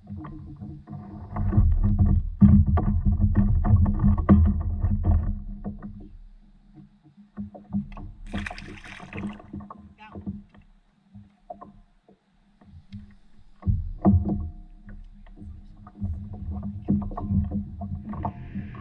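Knocks, bumps and clicks of a person moving and handling gear on a fishing paddleboard, carried through the board to a camera mounted on it, over a low rumble. A short hiss about eight seconds in.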